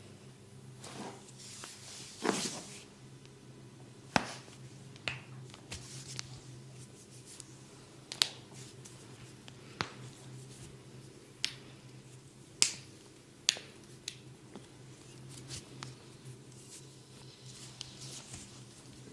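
Sharp snaps and clicks from hands at work in a massage, about eight of them at irregular intervals, the loudest about two seconds in.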